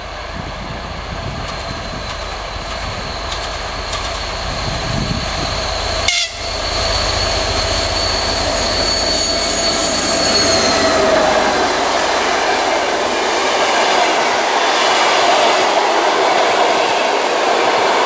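TEP70 diesel passenger locomotive running past at speed with its train: a rising engine rumble with a held high whine that drops in pitch as the locomotive goes by, then the louder rumble and clatter of the passenger coaches' wheels on the rails. The sound breaks off for an instant about six seconds in.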